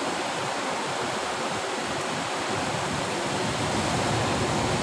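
Sea surf breaking and washing over rocks, a steady rushing noise that swells slightly in the second half.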